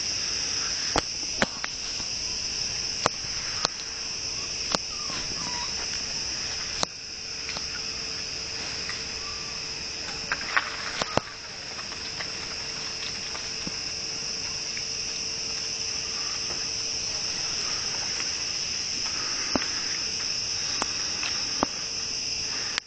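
Steady, high-pitched chorus of jungle insects, crickets or cicadas, trilling without a break. A scattering of sharp clicks stands out above it now and then.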